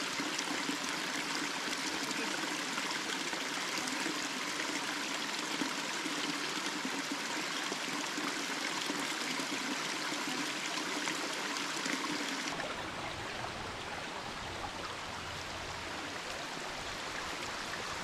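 Small waterfall running low, water trickling and splashing down a mossy rock face in a steady rushing hiss. About twelve seconds in the sound turns abruptly duller, with a low rumble underneath.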